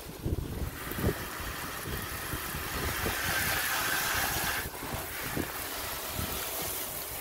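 Water spraying from a pistol-grip garden hose nozzle onto a car's wheel and body panels: a steady hiss that starts about a second in, breaks off for a moment a little over halfway through, and resumes.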